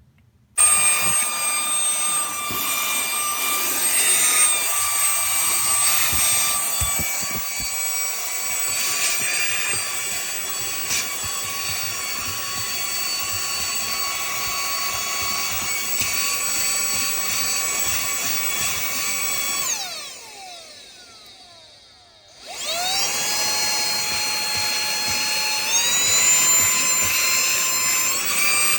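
Wirelume cordless handheld vacuum's brushless motor running with a high-pitched whine. It winds down when switched off about 20 seconds in, spins up again a couple of seconds later, and steps up to a higher speed near the end.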